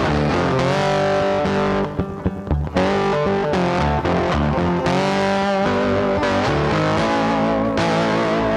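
Background music led by guitar, with a brief drop in loudness about two seconds in.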